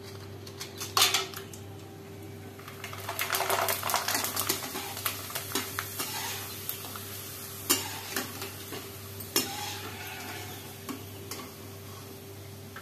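Dried potato chips frying in hot oil in a steel pot: a burst of sizzling as the slices go in, then a spell of crackling while they puff up. Sharp clinks of a perforated steel skimmer against the pot follow, over a steady low hum.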